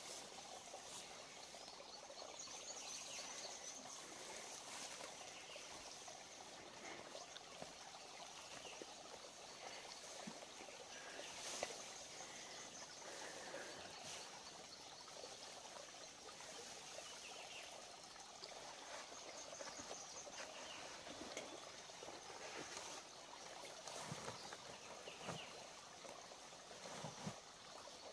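Faint rustling and swishing of tall grass and leafy brush as a person pushes into and tramples through the dense vegetation, with a few soft thumps near the end.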